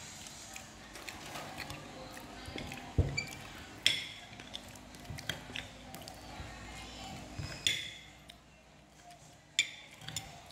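Metal spoon clinking and scraping on a ceramic plate of rice, with a few sharp clinks scattered through.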